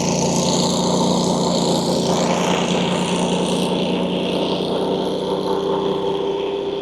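An engine running steadily: a low even hum with a higher whine over it.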